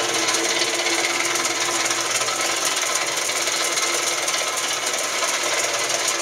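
Lodge & Shipley 14-inch engine lathe running, a steady mechanical hiss and rumble of its gearing with a faint steady hum underneath.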